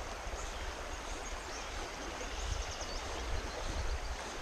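Steady rush of a fast, high-running creek.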